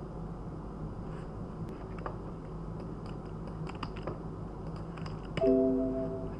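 A barcode scanner gives one short, loud beep about five seconds in as it reads a drug-label sticker, the sign of a successful scan. A few faint clicks and a low steady hum come before it.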